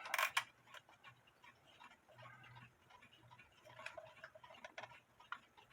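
Late-1800s German wall clock with a wooden plate movement ticking faintly and evenly. A short sharp knock comes right at the start.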